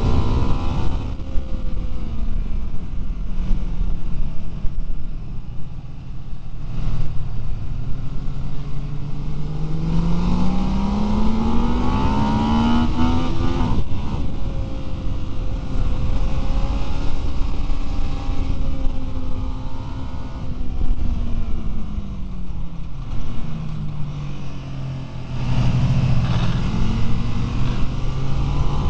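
Ducati 999 L-twin engine, heard from on board, revving under hard acceleration: the engine note climbs steeply to a peak about halfway through, falls away slowly as the bike eases off, then climbs again near the end. Heavy wind rush over the microphone sits under the engine throughout.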